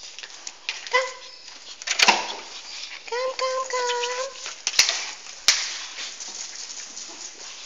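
Pomeranian whining in high-pitched calls: a short whine about a second in and a longer, fairly level one about three seconds in. A few sharp clicks come around two and five seconds in.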